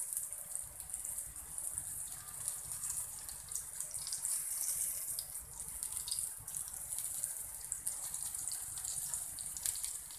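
Semolina- and rice-flour-coated surmai (kingfish) pieces sizzling in shallow oil on a black tawa, a steady high hiss with scattered small crackles.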